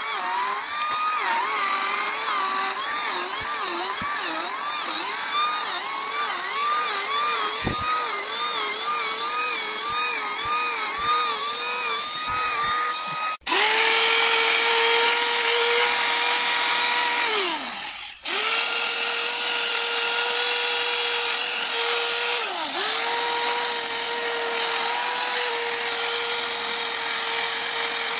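High-speed handheld rotary grinder with a small abrasive bit sanding birch wood, its whine wavering up and down as it is pressed into the carving. About 13 seconds in this gives way to a cordless drill spinning an abrasive brush over the wood at a steadier whine. The drill winds down near 18 seconds, starts again, and dips in pitch once more a few seconds later.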